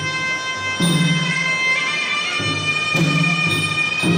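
Traditional Kun Khmer boxing music: a sralai, a Khmer reed oboe, plays a held, nasal melody that shifts pitch about halfway through, over skor drum strokes that fall about three times.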